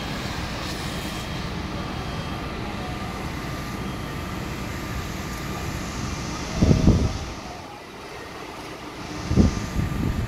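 Steady mechanical rumble of a fire apparatus's engine and pump running while the aerial platform's monitor sprays water. Two short, loud, low buffets cut across it, one about two-thirds of the way in and one near the end.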